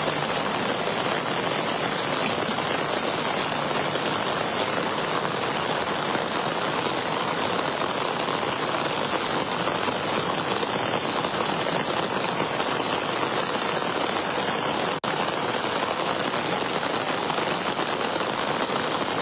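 Rain falling on a flooded street with floodwater running across it: a steady, even hiss, recorded on a phone. The sound cuts out for an instant about fifteen seconds in.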